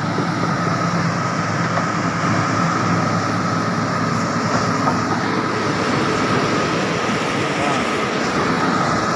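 Kobelco SK350LC excavator's diesel engine running steadily close by, with a constant high whine over the low engine hum.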